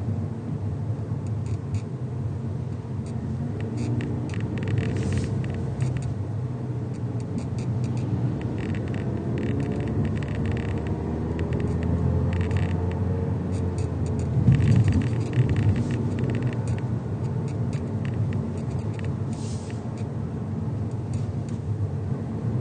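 2022 Mazda3 on the move: a steady low road and engine rumble, with short bursts of rattling clicks that come and go every few seconds. The owner points to these rattles as the car's abnormal noise.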